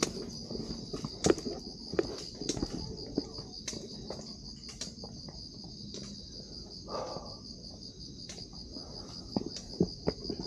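Steady chorus of night insects, a high, finely pulsing trill that keeps on without a break. Scattered sharp clicks and knocks sound over it every second or so.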